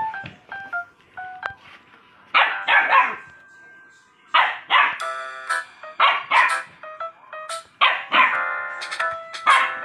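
Puppies barking in about six quick bursts of two or three barks each, starting a couple of seconds in, with a simple melody playing in the background.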